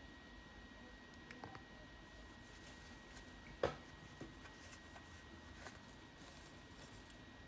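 Quiet room tone with a faint steady high whine, broken by a few small clicks and taps, the sharpest about halfway through.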